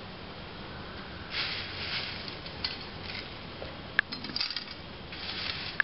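Dry vermicelli strands in a nonstick frying pan with ghee, giving short bursts of crackling and light clinks, with one sharp click about four seconds in.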